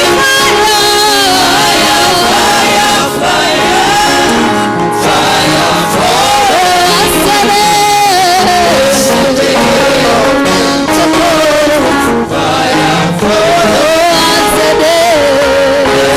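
Gospel music with singing, a sung melody over a band, loud and steady throughout.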